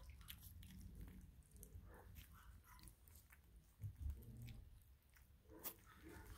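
Faint wet lapping and smacking of four-week-old Russian Toy puppies eating soft mush from a bowl, with a dull bump about four seconds in.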